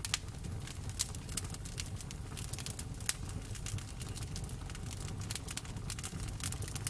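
Campfire burning, with irregular sharp crackles and pops of the wood over a steady low rumble of the flames.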